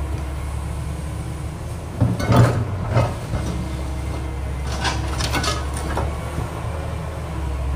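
Tracked excavator's diesel engine running steadily under load while the steel bucket digs into a pile of scrap iron, with metal clanking and scraping about two seconds in and again around five seconds in.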